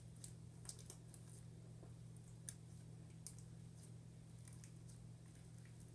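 Faint, scattered sticky clicks and squishes of homemade glitter-glue slime being worked by hand while it is still sticky, over a steady low hum.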